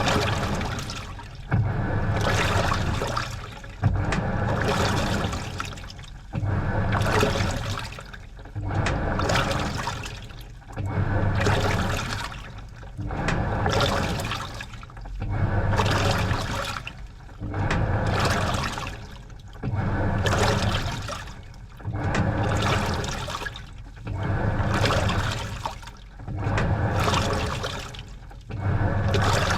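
Washing machine agitating a load in water during its wash cycle. The motor hums in regular strokes about every two seconds, with water sloshing and splashing in the tub on each stroke.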